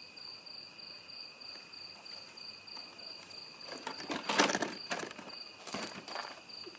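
Crickets chirping in a fast, even pulse about four times a second, with a second steady high trill beneath. A few brief louder noises break in about four and six seconds in, the first the loudest.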